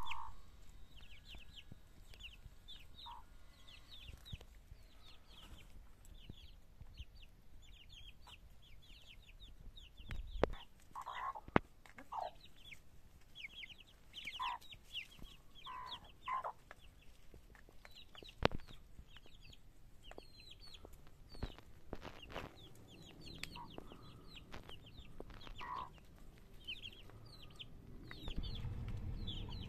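A flock of Amrock chicks peeping continually in short, high calls while feeding, with Isa Brown hens clucking now and then. A few sharp taps stand out, and a low rumble comes in near the end.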